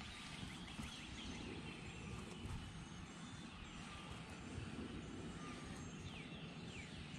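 Quiet outdoor ambience: birds chirp faintly here and there over a low, steady background rumble.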